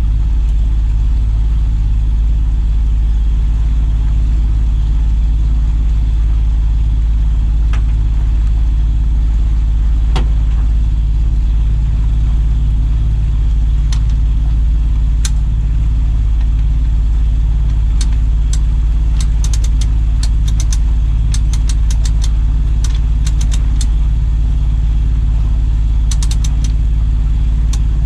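Boat's outboard motor running steadily, a loud low drone, with a scatter of sharp clicks in the second half.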